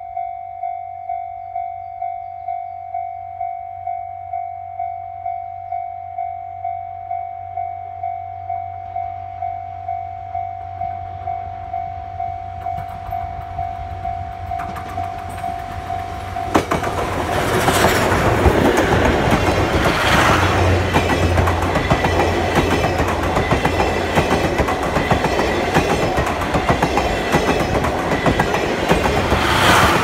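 Level-crossing warning signal dinging steadily about twice a second. About sixteen seconds in, the C57 180 steam locomotive and its 12-series coaches reach the crossing and pass close by: a loud rush of running noise with the wheels clattering over the rails drowns the signal.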